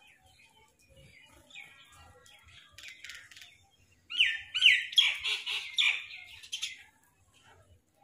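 House crows calling: scattered faint calls at first, then a loud run of quick, rasping caws from about four seconds in, lasting some three seconds.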